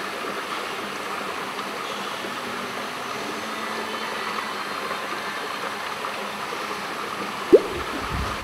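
Steady rush of circulating water in an indoor saltwater fishing pond. A single brief, sharp rising swish cuts in near the end.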